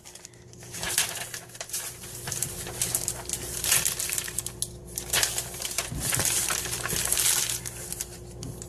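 Paper and plastic packaging of a latch hook kit rustling and crinkling as it is handled, in irregular crackles, over a faint steady hum.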